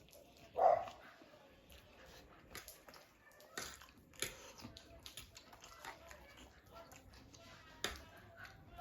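Close-up eating sounds of spicy noodles being chewed and slurped, with many small scattered clicks and one louder short sound under a second in.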